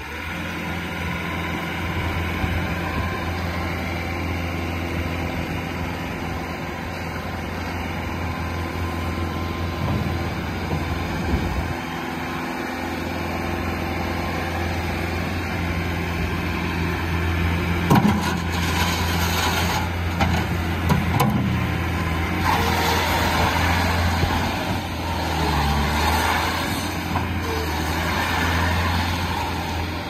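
2017 Bobcat S650 skid steer loader's diesel engine running steadily as the machine is driven and turned, dipping briefly about a third of the way in. A few sharp clanks come a little past halfway, and the sound grows harsher and busier in the last third.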